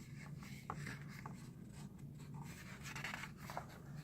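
Faint rustling and crinkling of paper as the pages of a calendar are handled and turned, with a few short sharper rustles, over a steady low hum.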